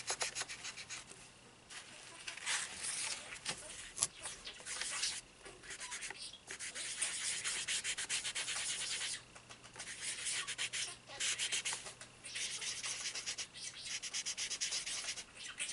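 Soft pastel being rubbed into paper in quick back-and-forth strokes: a dry, scratchy rubbing that comes in runs of a few seconds with short pauses between.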